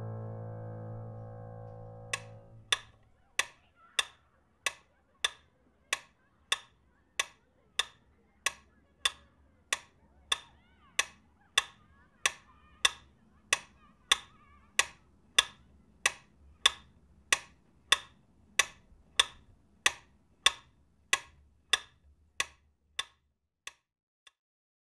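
A piano chord dies away, then a clock ticks steadily, about three ticks every two seconds, until the ticking stops near the end.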